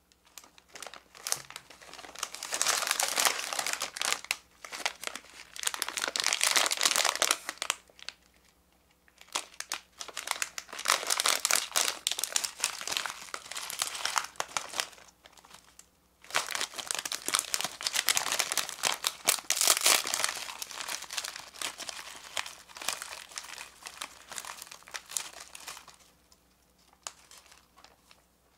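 Hands crinkling and tearing open the plastic wrapper of a bag of Gari Bori Ramen dry ramen snack. The crinkling comes in long bursts with a few short pauses.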